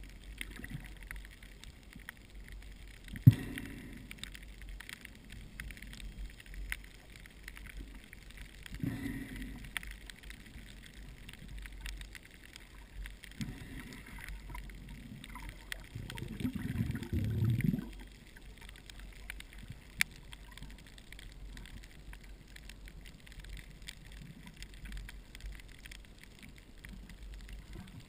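Underwater reef ambience: a steady low rumble with faint crackling clicks. Several muffled swishes of moving water come and go, the longest lasting about two seconds near the middle, and a single sharp knock about three seconds in is the loudest sound.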